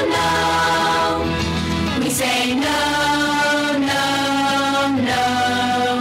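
Choir singing long held notes, the chord moving to a new one every second or two.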